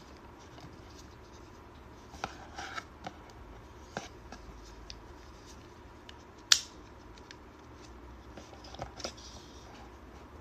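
Hands handling small objects: scattered light clicks and scraping, with one sharp click about six and a half seconds in.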